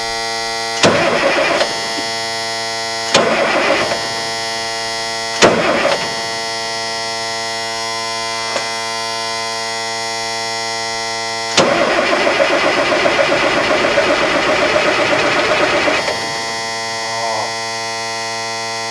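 Starter cranking the M35 deuce-and-a-half's turbocharged diesel engine with the fuel shut off: three short bumps of about a second each, then one longer crank of about four seconds in an even pulsing rhythm, the engine turning over without catching. This is a check that the engine is not hydrolocked after months of sitting. A steady electrical buzz runs underneath.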